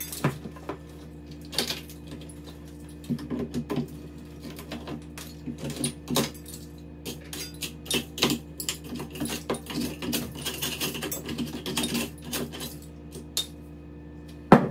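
Irregular clicks, knocks and scrapes of a long metal rod being worked through a cut-out electrical box opening into the wall cavity, over a steady low hum.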